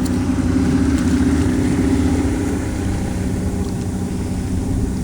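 Boat motor running steadily, a continuous engine drone with no change in speed.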